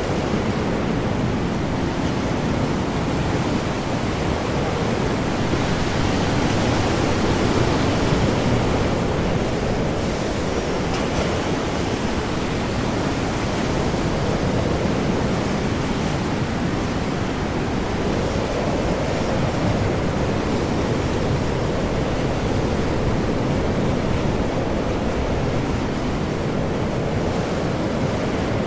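Ocean storm: heavy, large waves and strong wind in a continuous rush of noise that swells and eases slowly.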